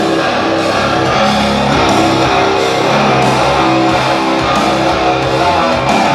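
Loud guitar-driven music playing steadily, without a break.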